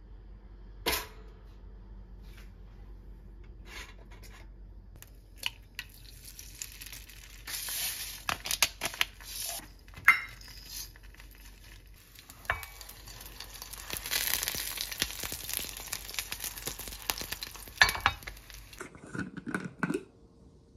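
Home cooking sounds: an egg sizzling in a frying pan, in two stretches of several seconds, among scattered clicks, knocks and clinks of utensils and dishes.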